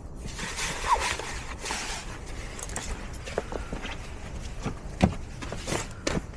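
Camping gear being handled: rustling with scattered light knocks and clicks, the sharpest about a second in and again about five seconds in.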